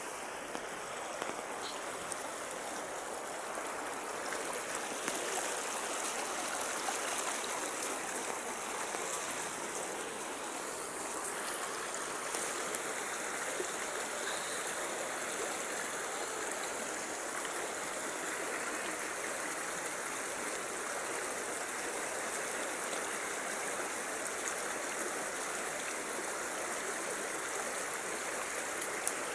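Stream water flowing, a steady even rushing.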